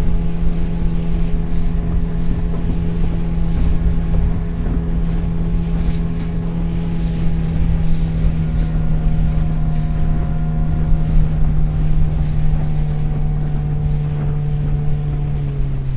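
Motorboat engine running steadily under way, with wind rumble on the microphone. Its pitch slowly sinks and drops further near the end as the boat throttles back.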